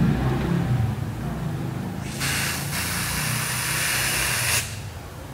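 Aerosol hairspray can spraying onto styled hair: a steady hiss lasting about two and a half seconds, with a brief break just after it starts.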